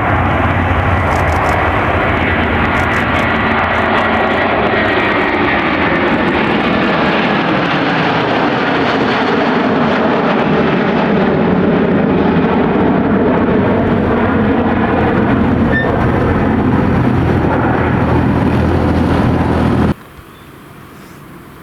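Airliner engines running loud and close, a dense rushing noise over a steady low hum, which cuts off abruptly near the end to a much quieter background.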